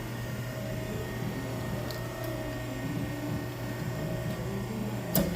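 Butter portioning machine running with a steady electric motor hum, two faint ticks about two seconds in and a sharp click near the end.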